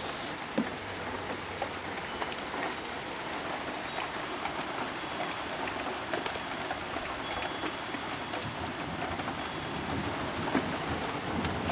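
Heavy rain pouring steadily, with a few sharp taps of drops striking close by.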